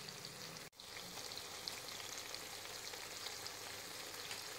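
Sliced red onions frying in hot oil in a pan: a steady sizzle full of small crackles and pops, with a brief break less than a second in.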